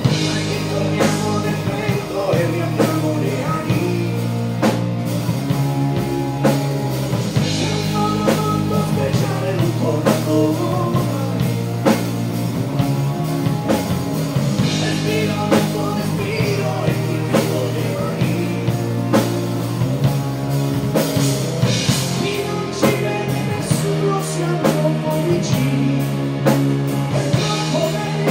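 Live rock band playing a pop-rock song: electric guitar, bass and drum kit with a steady beat, and a man singing lead at times.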